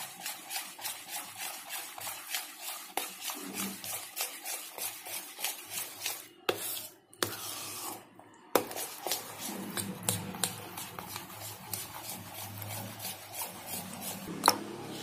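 A metal spoon stirring and scraping a thick custard mixture around a stainless steel bowl in quick repeated strokes, about four a second, with short breaks around the middle. A sharper knock of spoon on bowl comes near the end.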